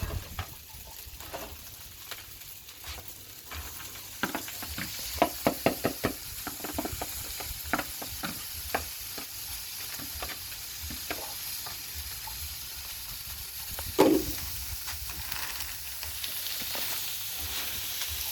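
Food sizzling on a Blackstone flat-top griddle while metal spatulas scrape and clack on the steel. A run of quick clacks comes around five to nine seconds in, and one loud clack near the fourteen-second mark.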